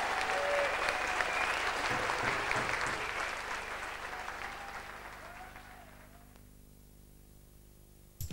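Dancers in a hall applauding with hand claps, the applause dying away over a few seconds to a faint hum.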